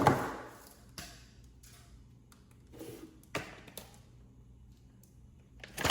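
Cardboard firework packaging being handled: a scraping rustle that fades out at the start, a few soft taps and knocks, then a loud scraping rush right at the end.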